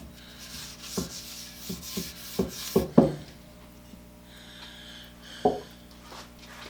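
Rag rubbing finishing oil over a wooden vise chop, with several light knocks in the first three seconds; after that it goes quieter, with one more knock later on.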